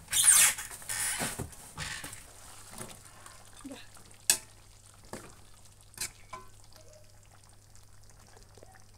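Chicken feet sizzling in oil in a wok as a metal spatula stirs them, with a loud burst of sizzling at the start that fades to a quieter hiss. A few sharp clicks of the spatula against the wok follow, about a second apart. The braising liquid has cooked down and oil has been added, so the feet are now frying.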